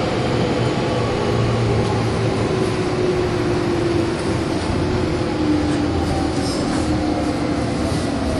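Meitetsu 100 series resistor-controlled electric train running, its traction motor and gear whine falling slowly in pitch as the train slows, over steady rumble.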